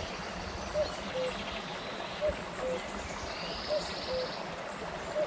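Shallow stream running and trickling over small rock cascades. Over it, a bird repeats a low two-note call about every second and a half, the second note a little lower than the first, with faint higher chirps.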